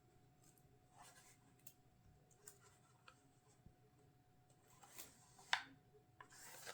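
Near silence with faint handling noises: small scrapes and clicks of an item and its packaging being handled, with one sharper click about five and a half seconds in.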